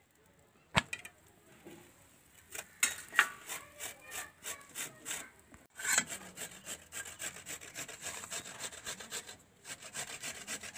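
Repeated scraping strokes of a cooking utensil, roughly three or four a second, after a single sharp click near the start.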